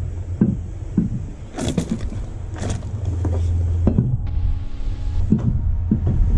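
Spare car wheel knocking and clunking against the hub several times as it is lifted and lined up on the wheel studs, over a steady low rumble. About four seconds in comes a brief whirring hum that lasts about a second.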